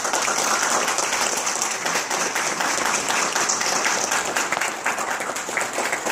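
Audience applauding: many hands clapping in a dense, steady patter, with single claps standing out more near the end.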